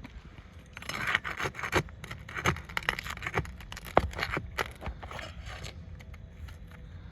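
Scraping and scratching of hand work on roof shingles: a run of short, uneven strokes and clicks, the sharpest click about four seconds in, stopping about a second before the end.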